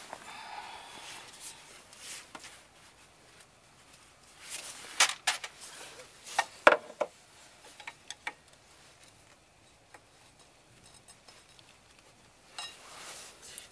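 A few short, scattered clicks and knocks of metal parts being handled at a car's rear hub and rusted drum-brake backing plate, with quiet stretches between them.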